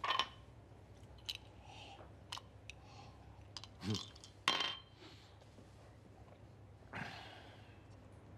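Close, quiet human breathing sounds: a few sharp breaths or sniffs, a brief hummed sound about four seconds in, and a long exhale near the end, with faint small clicks over a low steady hum.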